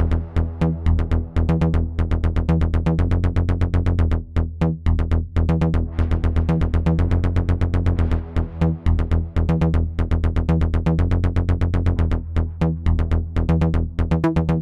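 Electronic background music with a fast, driving beat over a steady bass line.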